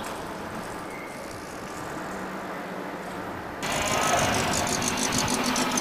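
Outdoor vehicle noise, fairly steady at first. About three and a half seconds in it jumps abruptly to a louder stretch with a rapid rattle.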